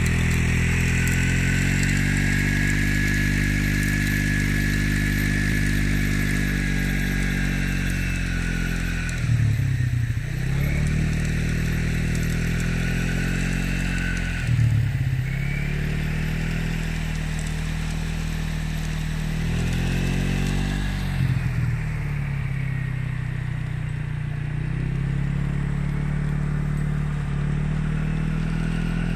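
A small engine runs steadily close by. Its pitch dips and comes back up briefly three times, with a short rise in loudness each time.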